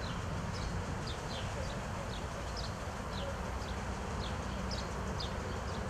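Outdoor ambience: a steady low rumble with small birds chirping in short, high, falling notes a few times a second.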